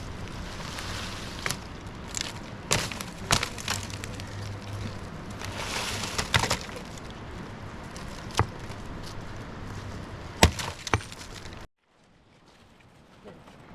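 Dry branches snapping and breaking: a series of sharp, irregular cracks over rustling, the loudest about ten seconds in, before the sound cuts off suddenly near the end.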